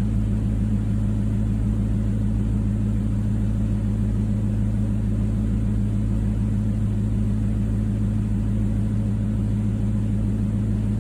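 2004 Pontiac GTO's 5.7-litre LS1 V8 idling steadily. The scan tool shows no misfires counting on cylinders 3 and 4, a sign the misfire has been cured.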